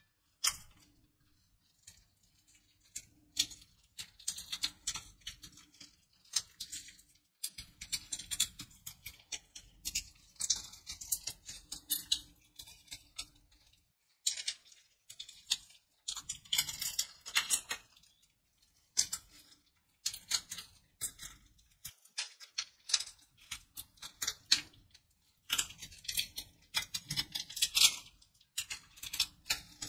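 A paper candy wrapper crinkling and crackling as gloved fingers twist and peel it off a soft caramel cube. The crackles come in irregular runs with a few short pauses.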